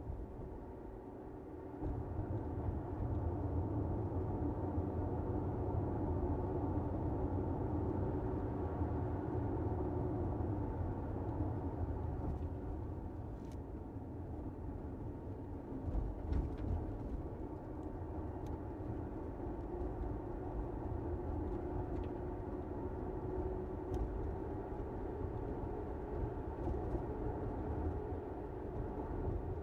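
Steady road and tyre rumble of a car driving, with a low hum, growing louder about two seconds in.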